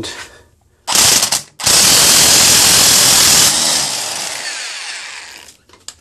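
Electric impact wrench driving a 5/16-inch hex-head Tapcon concrete screw into a block wall: a short burst about a second in, then a longer run of about two seconds that fades out over the next two.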